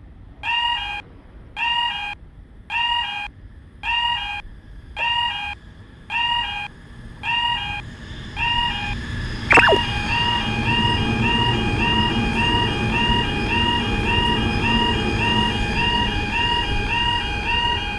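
Japanese level crossing warning bell ringing in regular electronic dings about twice a second. About nine and a half seconds in there is a sharp, brief falling sound. After it a train passes with a low, steady rumble while the bell keeps ringing, now a little quicker.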